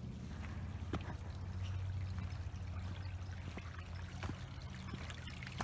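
Small rocky stream trickling steadily, with a few faint ticks.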